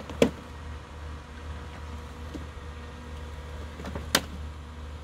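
Worx Landroid M robotic mower running: a steady low motor hum with a faint thin whine. Two sharp clicks stand out, one just after the start and one about four seconds in.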